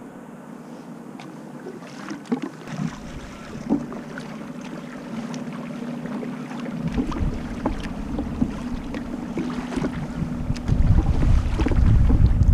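Water splashing and lapping against a kayak's hull, with short splashy ticks, while wind buffets the microphone, building into a heavy low rumble for the last couple of seconds. A faint low hum sits underneath for a few seconds in the middle.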